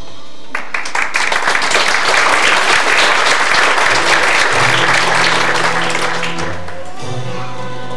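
Audience applauding, breaking out about half a second in and dying away near the end, with stage music carrying on underneath in held low notes.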